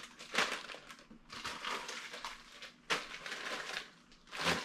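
Plastic packaging of a pack of drinking straws crinkling and rustling in irregular bursts as it is handled, with a sharper crackle about three seconds in.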